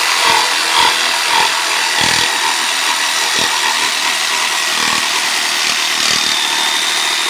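Electric jigsaw cutting through wood, its motor running steadily under load.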